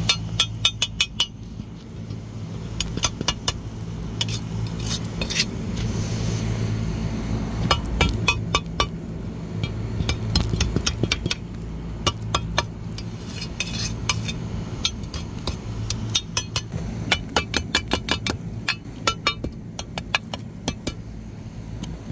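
Ice being chipped and broken off a refrigerated produce case's frozen coil and pan: rapid, irregular sharp clicks and clinks in clusters, over a steady low hum.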